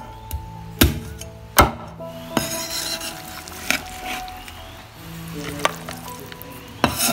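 Two sharp cleaver chops through raw chicken into a wooden cutting board, then wet chicken pieces scooped up by hand onto the cleaver blade and dropped into a plastic bowl, with a few light knocks.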